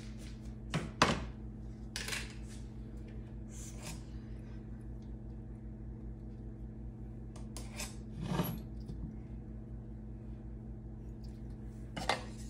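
Kitchenware being handled at the stove: a metal wok and a wooden spoon knocking and clinking a few times, the sharpest knock about a second in. A steady low hum runs underneath.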